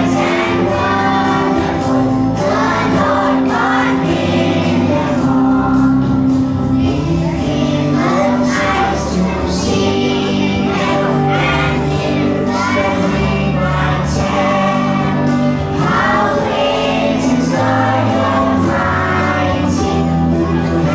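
A song with a group singing over a steady instrumental backing.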